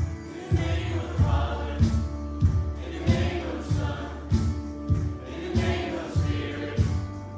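A group singing a worship song together, with instrumental accompaniment and a steady beat a little under twice a second.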